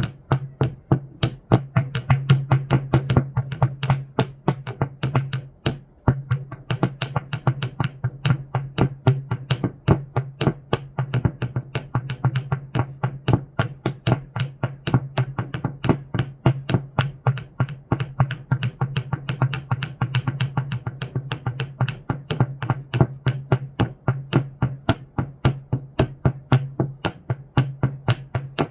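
Rocks being knocked and clacked together in a quick, uneven rhythm of sharp hard clicks, about four a second, over a steady low hum.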